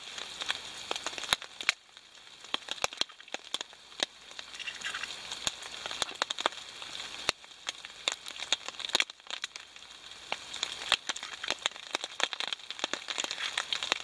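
Eggs being cracked on the rim of a plastic bowl and stirred with a metal spoon: irregular sharp clicks and taps.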